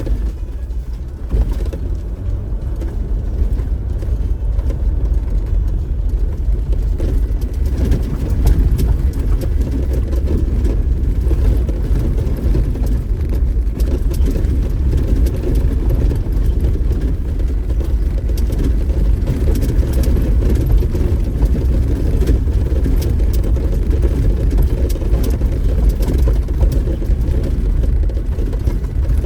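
Off-road vehicle driving slowly over a rough dirt trail: a steady low rumble of engine and tyres on the dirt, with scattered knocks and rattles.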